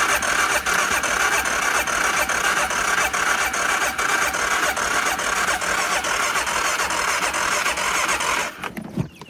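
Carbureted ATV engine being cranked on its electric starter with the choke on. It turns over steadily for about eight and a half seconds without catching, then stops abruptly.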